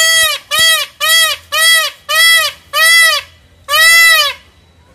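Indian peafowl (peacock) calling: a quick run of seven loud calls, each rising and falling in pitch, about two a second, the last one the longest.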